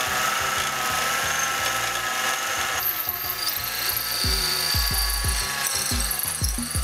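Mini lathe running while a large twist drill in the tailstock bores into spinning aluminum round stock, a steady machine whine. Background music plays along, with a low beat coming in about four seconds in.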